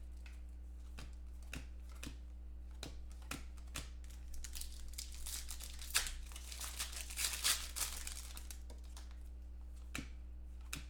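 Foil trading-card pack wrappers being torn open and crinkled by hand, with scattered clicks and rustles as the cards inside are handled, busiest in the middle. A faint steady low hum runs underneath.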